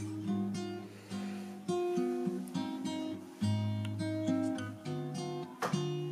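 Background music: an acoustic guitar playing plucked notes and chords over low bass notes.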